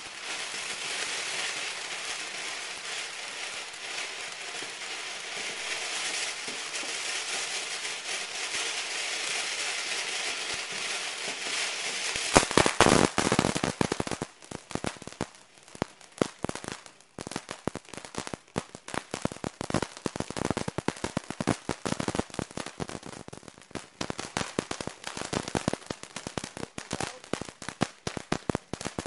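Ground fountain fireworks spraying sparks: a steady hiss for about the first twelve seconds, then a dense, fast, irregular crackling that runs on.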